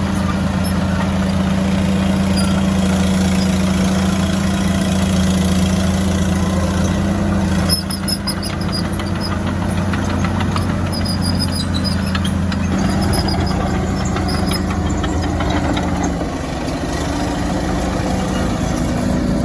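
Fiat-Allis FL10C crawler loader's diesel engine running steadily, its note and load shifting about eight seconds in and again twice later. From the first change on, short high metallic squeaks and clicks come through over the engine.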